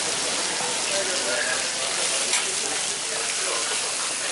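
Meat sizzling on a hot flat-top griddle: a steady hiss that holds even throughout, with faint voices underneath.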